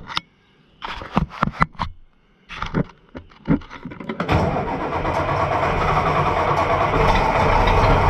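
A few sharp clicks and knocks, then about four seconds in the Oliver 1650's six-cylinder diesel engine catches on a cold start and runs steadily, growing slightly louder.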